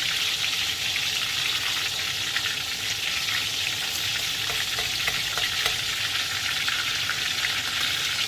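Marinated milkfish (dinaing na bangus) frying in very hot oil in a pan: a steady sizzle with scattered small crackles and pops.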